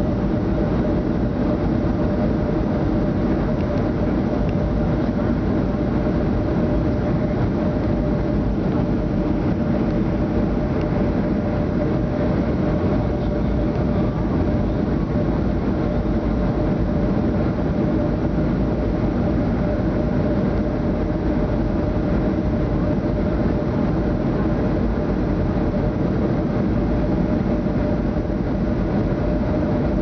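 Boeing 757 passenger cabin on final approach: the steady roar of the wing-mounted Rolls-Royce jet engines and rushing air, heard from a window seat over the wing. A steady tone runs through it.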